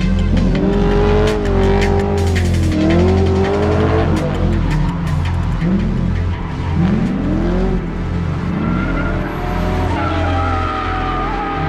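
Drift cars' engines revving up and down with tyre squeal as they slide, mixed with background music. Near the end the engine sound thins out and steady musical tones take over.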